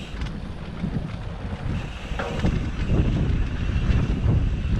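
Wind buffeting the microphone of a mountain bike rider's camera, over the low rumble and rattle of the bike rolling along the trail, getting louder about halfway through.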